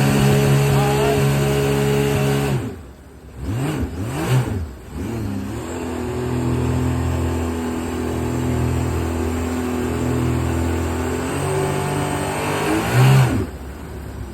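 Rebuilt Sea-Doo 1503 three-cylinder four-stroke engine at full throttle in sport mode, banging the rev limiter. The revs drop about two and a half seconds in and blip twice. They then climb back and hold high for about eight seconds before falling away near the end.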